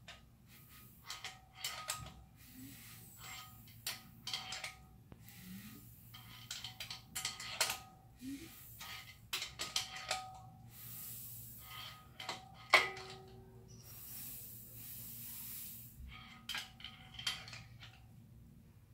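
Datsun L28 straight-six being turned over slowly by hand at the crank: a run of irregular metallic clicks and ticks from the tool, timing chain and sprockets, some ringing briefly, with one sharp clack about two-thirds of the way through. A faint hiss comes and goes twice, while the piston rises against a piston stop and compression builds and vents in the cylinder.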